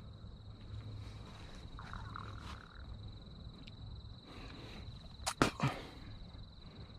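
Quiet outdoor background with a steady high-pitched whine and a low hum, a short wavering chirp about two seconds in, and two or three sharp knocks a little after five seconds in, the loudest sounds.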